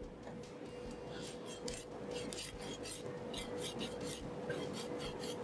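Kitchen knife sawing back and forth along the side of a horse mackerel, shaving off the hard row of scutes (zeigo) near the tail: a quick series of short, rasping scrapes of blade on skin and scales.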